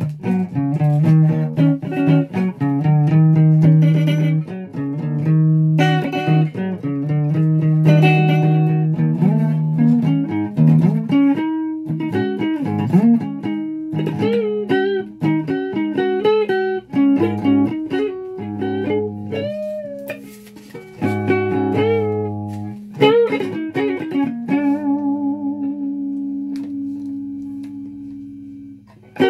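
Flying V electric guitar with humbucking pickups played alone: picked lead lines with string bends and wavering vibrato on held notes. Near the end it settles on one long held note that slowly fades.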